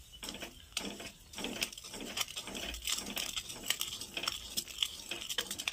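A steel spoon stirring and scraping bubbling jaggery syrup in a steel kadhai, in quick repeated strokes about two or three a second. The syrup is boiling down nearly to its finished stage.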